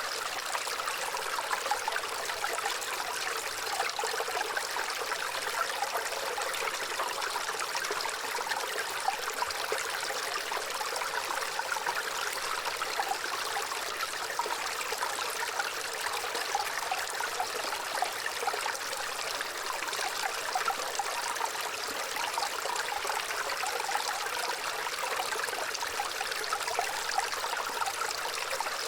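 Gentle running water, a small stream trickling and splashing steadily, with many small quick splashes.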